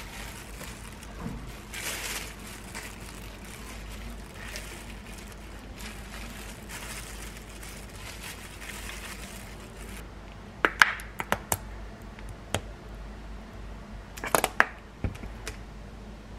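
Kitchen handling sounds over a steady hiss: soft rustling of a plastic food-prep glove while cooked shrimp are set on a plate, then two clusters of sharp clicks and taps, ceramic and utensil knocks as cocktail sauce goes into a small ceramic ramekin.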